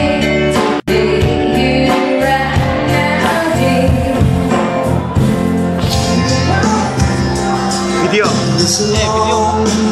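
Live band playing a song, a woman singing into a microphone over electric guitar, keyboard and drums. The sound drops out for an instant about a second in.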